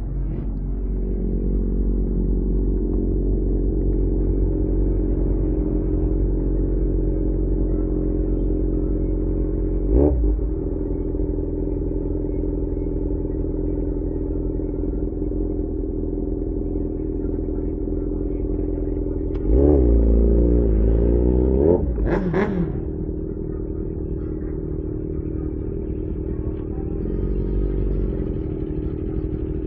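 Yamaha XJ6 S inline-four engine running through an SC-Project aftermarket exhaust under way, mostly steady. There is a short blip of throttle about ten seconds in, and a rising rev about twenty seconds in that ends in a brief sharp noise.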